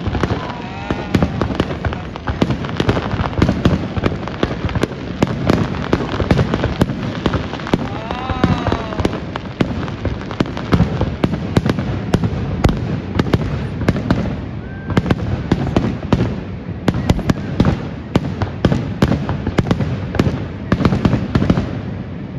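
Aerial fireworks display: shells bursting in quick, irregular succession, several bangs a second over continuous crackling, easing off near the end.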